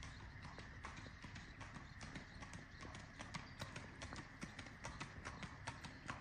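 Tennessee Walking Horse's hooves clip-clopping, a quick, uneven patter of hoofbeats over a steady background hiss.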